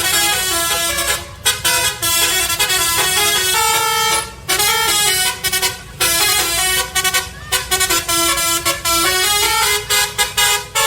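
Hino truck's telolet musical horn playing a quick tune of short and held notes, pausing briefly between phrases.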